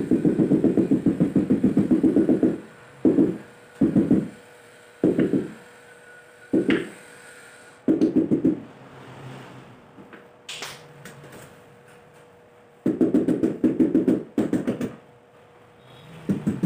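Hand tiling work on wall tile and adhesive: fast runs of rapid knocking or scraping strokes, then several short separate strokes and a few sharp clicks, before another fast run near the end.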